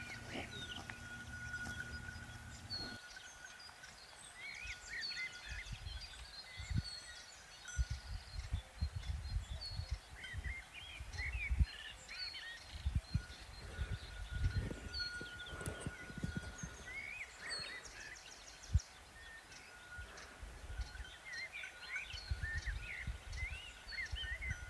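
Small birds chirping and singing over low rumbling, with a thin steady high tone that comes and goes and a few sharp knocks.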